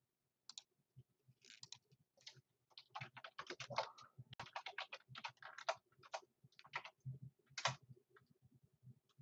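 Faint typing on a computer keyboard: quick, irregular key clicks, a few at first, then a dense run in the middle that thins out near the end.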